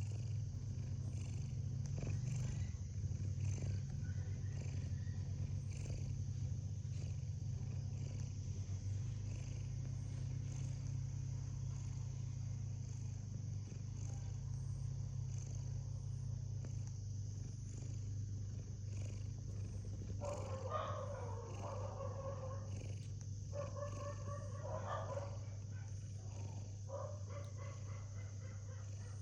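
A sleeping domestic cat snoring with a low, continuous, purr-like rumble. About two-thirds of the way in, a higher, steady sound comes and goes three times over it.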